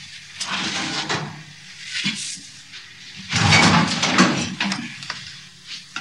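A metal baking tray being slid into an oven, making noisy scraping and clattering. The longest, loudest scrape comes about three and a half seconds in.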